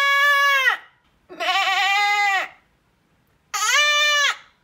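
A woman imitating a goat with her voice: three long, nasal bleats of about a second each, with short pauses between them.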